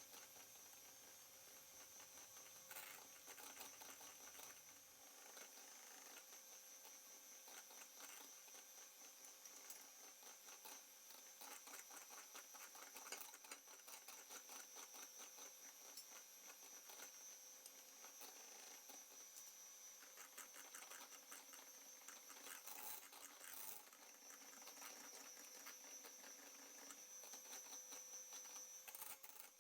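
Electric hand mixer running faintly, beating cake batter in a bowl, with a steady thin whine and rapid light clicking.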